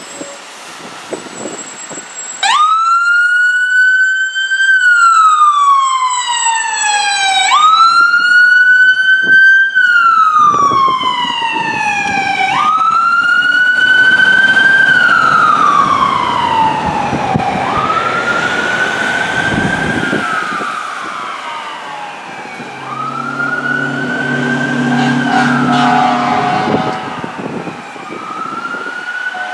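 A KME Predator fire engine's siren wailing as it responds. Every five seconds or so the pitch jumps up sharply and then slides slowly back down. Near the end a low, steady horn sounds over the siren for a few seconds.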